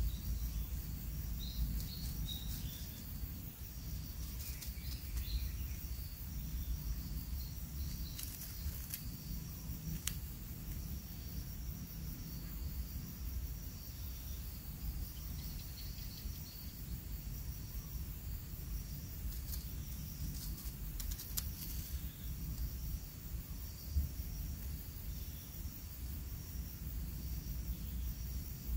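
Outdoor ambience: insects chirping steadily in high, rapid pulses over a constant low rumble, with a few faint clicks.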